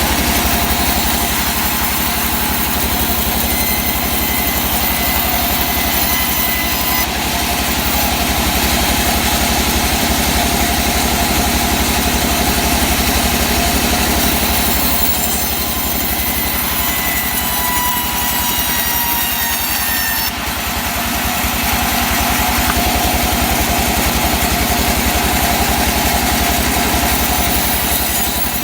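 Sawmill running steadily: a loud engine-like drone with higher steady and gliding tones above it, dipping briefly about seven and twenty seconds in.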